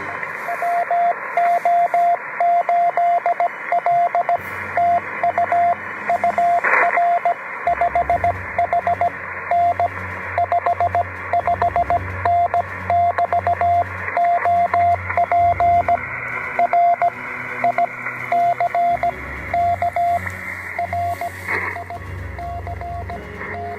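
Morse code (CW) on a ham radio: a single steady mid-pitched tone keyed on and off in dots and dashes over receiver hiss.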